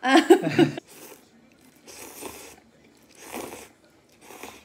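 A short spoken word opens it. Then thin wheat noodles in anchovy broth are slurped in four short bursts about a second apart.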